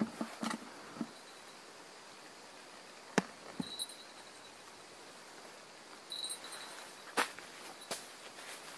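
Quiet night ambience with a few sharp clicks and knocks, the loudest about three seconds in, and two brief high chirps.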